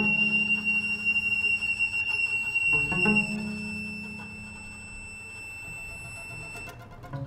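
Free improvised music on double bass, guitar and violin: low string notes struck sharply at the start and again about three seconds in, ringing on and fading, under a thin high tone held steady until near the end.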